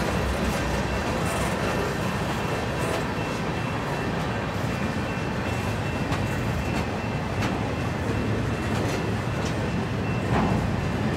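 Freight cars of a long CN freight train rolling past: a steady rumble of steel wheels on rail, with scattered sharp clicks and a faint steady high ring.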